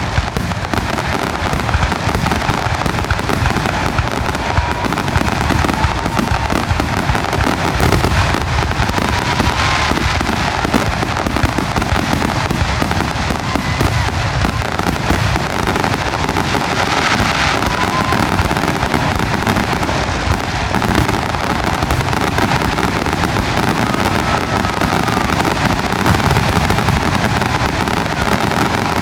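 Fireworks finale: a continuous, dense barrage of aerial shells bursting and crackling, one report running into the next with no pause. A few short whistles rise faintly above the barrage.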